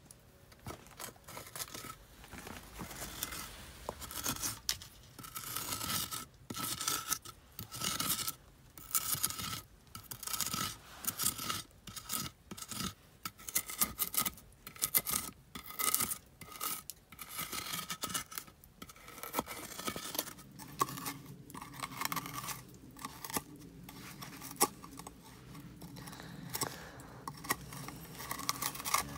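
Rock, then a blade, scraping charred wood out of the hollow of a coal-burned cedar bowl: quick, repeated rasping strokes with short gaps between them.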